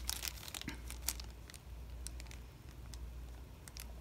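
Plastic bag crinkling as a bagged SATA cable is handled: scattered short crackles, busiest in the first second and then sparse.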